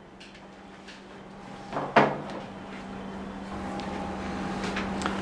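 A single sharp knock about two seconds in, over a steady low hum and room noise that grows louder toward the end.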